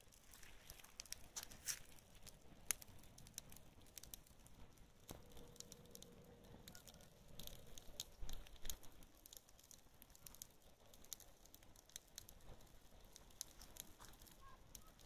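Untreated dry hay burning, with faint, irregular sharp crackles over a soft hiss.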